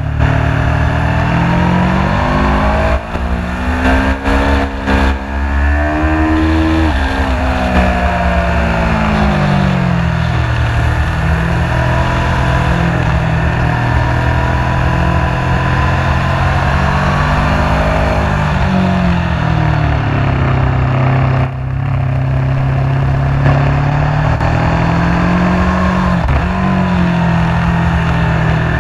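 Aprilia sport bike's engine at racing speed, its pitch climbing through several quick breaks early on as it shifts up, then falling off as it slows for a corner, and rising and falling again later. A steady low rumble of wind on the microphone runs under it.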